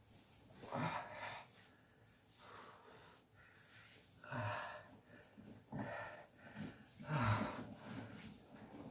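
A man groaning and breathing out heavily, in a series of breathy groans a second or two apart, several opening with a short low grunt that falls in pitch: the sounds of an aching body.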